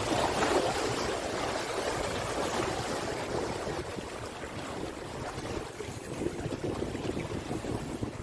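Steady rushing and washing of sea water against breakwater rocks.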